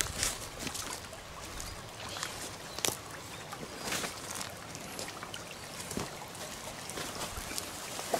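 Water splashing and trickling in a shallow pond, with a few scattered sharp clicks.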